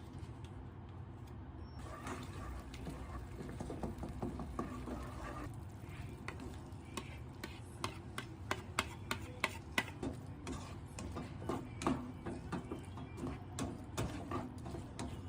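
Kitchen utensil stirring in cookware, with a run of irregular light clicks and taps that grows busier about halfway through.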